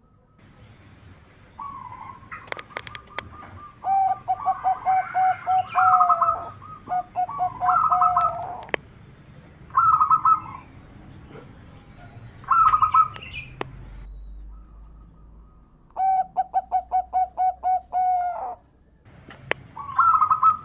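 Zebra doves (perkutut) cooing: a series of fast, rolling, stuttering coo phrases, several seconds apart, with a few sharp clicks between them.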